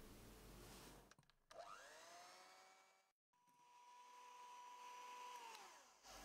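Electric hand mixer whipping egg whites and sugar into meringue. Its motor whine rises as it speeds up about a second and a half in, cuts out briefly, then runs steady before falling away as the motor slows near the end.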